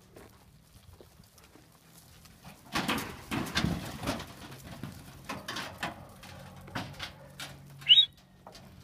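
Sheep crowding into a yard pen: from about three seconds in, a run of irregular knocks and clatters as hooves and bodies hit the ground and the timber and iron rails. Near the end there is a single short, high, rising chirp.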